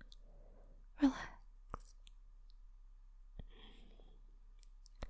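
A woman breathing softly close to the microphone, with a breathy sigh about a second in and a few small mouth clicks.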